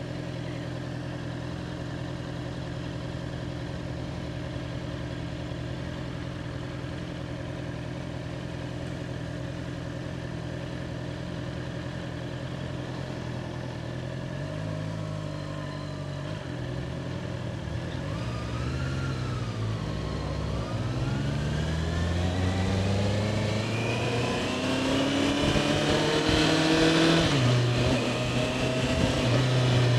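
A Honda CBR650R's inline-four engine runs steadily at low revs for about the first half. Its revs then rise and fall a few times, climb smoothly for several seconds as it accelerates, and drop back near the end.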